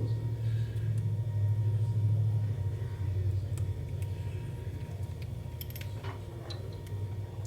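Steady low hum, with a few light clicks and ticks of small hard objects a little past halfway through.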